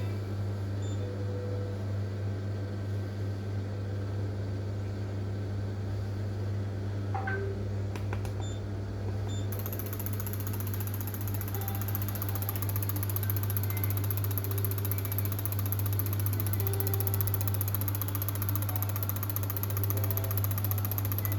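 Ford EcoSport 1.4 HDi diesel engine idling steadily with a constant hum and mechanical clatter. A few clicks come about a third of the way in, and a high hiss joins shortly after.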